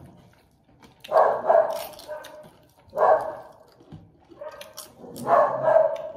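A dog barking over and over, a loud bark about every two seconds with fainter ones between.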